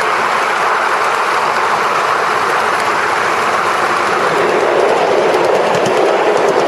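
7¼-inch gauge miniature railway train running steadily along the track, a continuous even noise that does not let up.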